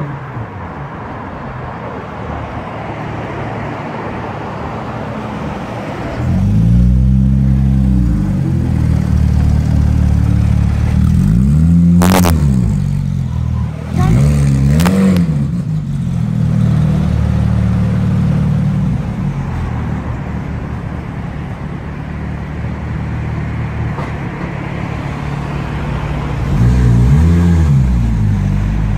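Porsche 911 GT3 RS naturally aspirated flat-six idling with several sharp throttle blips, each rising quickly and falling back. The highest blip comes about twelve seconds in with a brief crack, and another comes just before the end as the car pulls away. City traffic is heard for the first few seconds.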